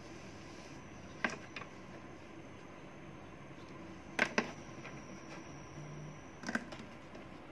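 A few light clicks and knocks of a glue stick and marker pen being picked up and set down on a tabletop, the sharpest a close pair about four seconds in, over steady background hiss.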